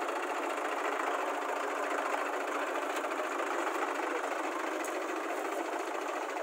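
Diesel tractor engines idling steadily at close range, a fast, even beat.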